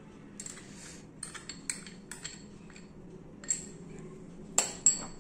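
A steel spoon scraping and tapping against a glass bowl and a steel mixer jar as grated coconut is spooned into the jar, with scattered light scrapes and clicks and two sharp clinks near the end.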